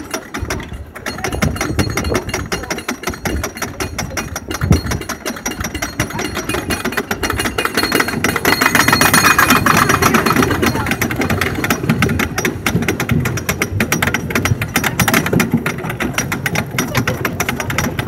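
Wooden roller coaster's chain lift hauling the train up the lift hill: a steady, rapid clatter of the lift chain and the anti-rollback dogs clicking over the ratchet, heard from inside the riding car. It gets louder for a few seconds midway.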